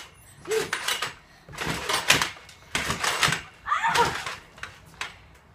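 Trampoline mat and springs thumping and creaking under a jumper, four bounces about a second apart, the last as he comes down on his back on the mat.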